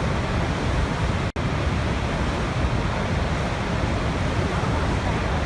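Niagara Falls: a steady, heavy rush of falling water. The sound cuts out for an instant about a second in.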